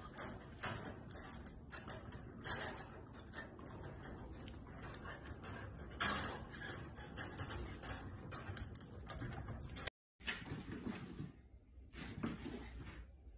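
Wire dog crate rattling and clinking in irregular clicks as a dog pushes at it, the loudest clank about six seconds in. After about ten seconds the clicking stops and softer knocks and scuffles follow.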